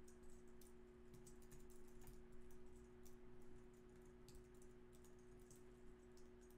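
Faint computer keyboard typing: quick, irregular keystrokes in short runs and pauses, over a steady low hum.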